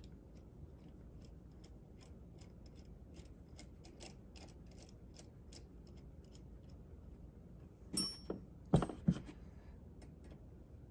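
Small metal screw and hex nut being threaded by hand onto a sheet-metal bracket, giving faint scattered clicks. About eight seconds in comes a sharp metallic clink with a brief ring, followed by two knocks in quick succession.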